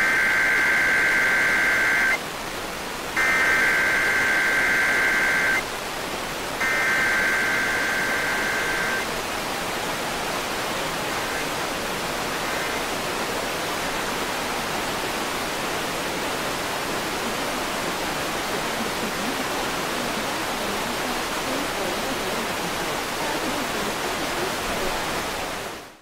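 Emergency Alert System SAME header data bursts: three buzzy bursts of two-tone digital data, each about two and a half seconds long with about a second between them, over a steady hiss. After the third burst the hiss runs on alone, with no attention tone, as a Required Weekly Test carries none.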